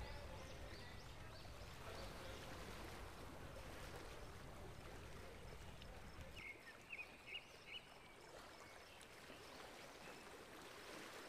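Near silence: faint background noise, with a few brief faint high chirps about two-thirds of the way through.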